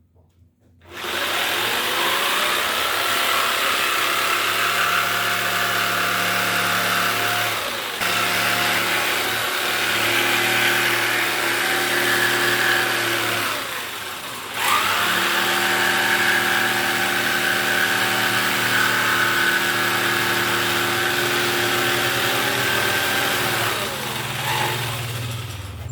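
Cordless circular saw motor running in two bursts: it spins up about a second in, runs steadily, winds down about halfway, then starts again and runs until it winds down near the end.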